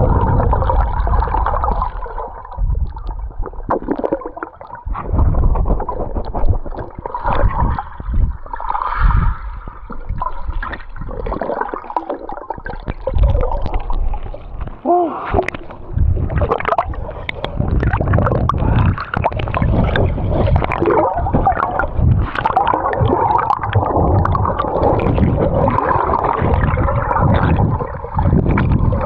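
Water gurgling and sloshing against a waterproof action camera as a swimmer carries it through the pool, dipping below the surface and back up, with irregular splashes.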